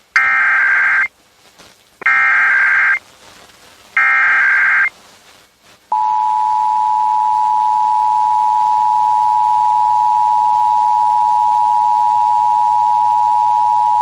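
Emergency Alert System SAME header: three one-second bursts of warbling digital data tones, each about a second apart, encoding a required monthly test. About six seconds in, the two-tone EAS attention signal (853 and 960 Hz together) starts and holds steadily.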